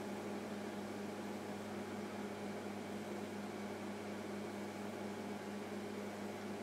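Steady electrical hum with a low pitch under an even fan-like hiss, from the powered-up bench test equipment and valve transceiver.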